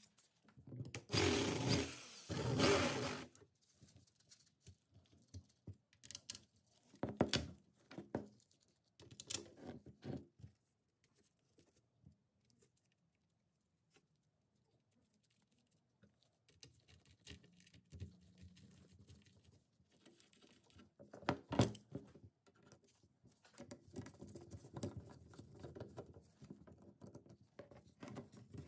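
Plastic saw handle and its screws being handled and fitted onto the steel hand saw blade on a wooden bench: rustling and scraping with scattered clicks and knocks, then a pause and more fiddly handling near the end.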